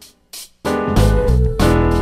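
Background keyboard music, piano-like: a brief pause, then full chords resume about half a second in.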